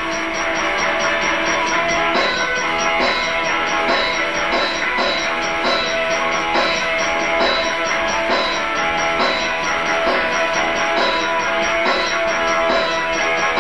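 Rock band playing live without vocals: guitar over a drum kit keeping a steady beat.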